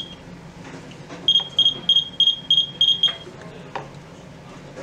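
Hermetic UTI meter's alarm beeping in short, evenly spaced high-pitched beeps, about three a second. It starts about a second in and stops about three seconds in, and it signals that the sensor is in water. A light knock follows shortly after.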